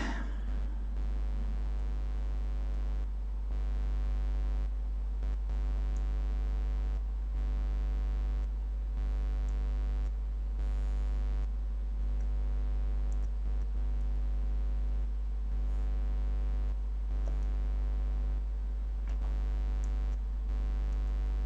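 Steady electrical mains hum with a long stack of overtones. The upper overtones briefly thin out every one to two seconds.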